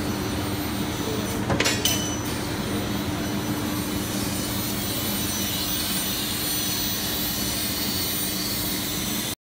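Steady machine hum and hiss of a 6 kW fiber laser cutting machine and its laser source running. A low steady tone gives way to a higher hiss about halfway through, and a few sharp clicks sound about one and a half to two seconds in. The sound cuts off suddenly near the end.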